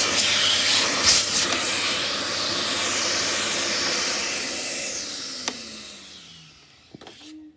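Dyson Big Ball Multi Floor 2 vacuum cleaner running with a loud, steady rush of air and a low hum, then switched off a little over halfway through, its motor whining down in falling pitch to a stop.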